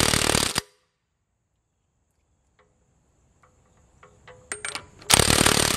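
Cordless impact wrench hammering in two short bursts, the first driving the pinion nut of a Dana 60 front differential the last bit tight against its yoke, the second near the end lasting nearly a second. Faint clicks and taps come between the bursts.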